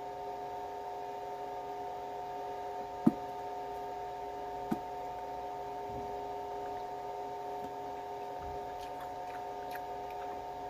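A steady electrical hum of several tones, with two short clicks about three and five seconds in.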